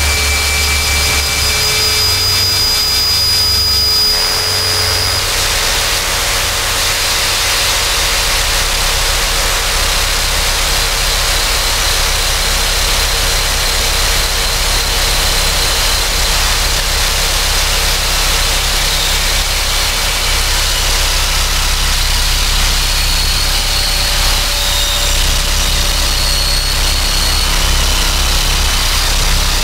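Harsh electronic noise music: a loud, dense wall of hiss over a low rumble, with a few thin steady tones. About four seconds in the low rumble falls away and the texture changes.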